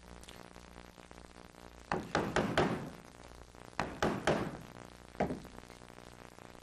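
Carving mallet tapping the handle of a gouge, driving its edge into the wood to set in feather cuts: a run of four quick taps, then three, then a single one.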